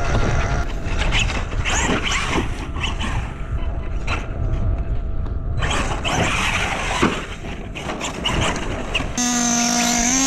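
RC monster trucks running on sand, with heavy wind rumble on the microphone and scattered clicks and scrapes. About nine seconds in it cuts abruptly to a steady engine note whose pitch rises slightly.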